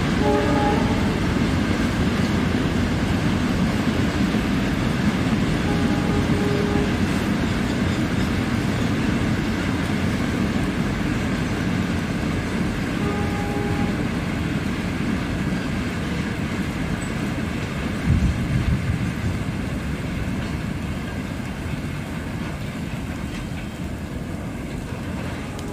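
Freight train wagons rolling past at a distance: a steady low rumble of wheels on rail that fades as the end of the train moves away. Short pitched tones come three times, and there is a brief louder bump partway through.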